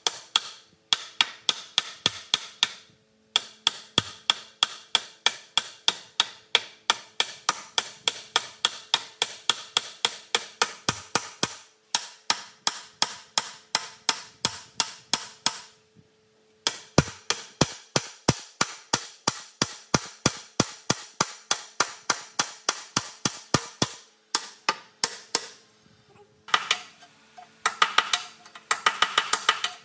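A hammer striking metal in quick, regular blows, about four a second, in several runs with short pauses. Near the end the blows come faster and closer together.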